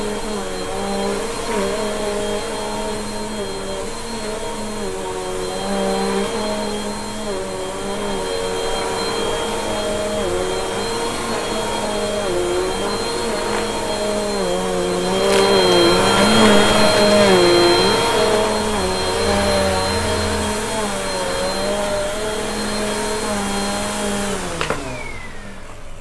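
Bissell upright vacuum cleaner running on carpet, its motor pitch wavering as it is pushed back and forth. Near the end the motor is switched off and winds down with a falling whine.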